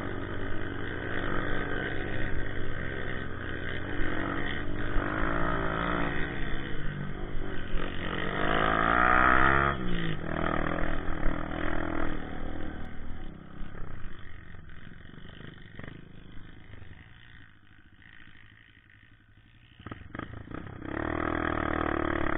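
Honda CRF150 dirt bike's single-cylinder four-stroke engine under way, revving up twice with rising pitch and loudest about nine seconds in, then easing off into a quiet coast for several seconds before the throttle picks up again near the end.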